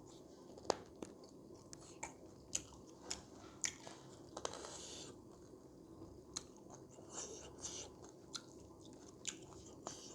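A person chewing and biting Naga-style pork curry close to the microphone. There are irregular wet mouth smacks and sharp crunchy clicks, a few of them louder.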